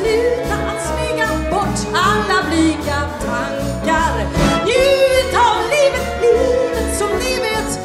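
A woman singing a show tune in Swedish with a powerful voice and vibrato on held notes, backed by a small live orchestra of strings and winds with a steady beat in the bass.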